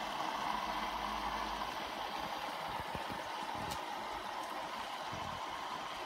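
Bosch washing machine filling at the start of a hot wash: a steady hiss of water running in through the inlet valve.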